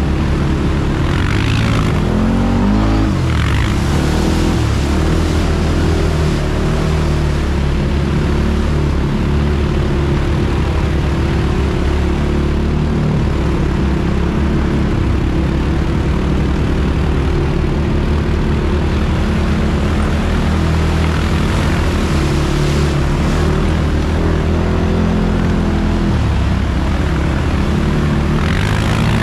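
ATV engine running steadily while riding along a muddy track, its pitch rising briefly about three seconds in as the throttle opens.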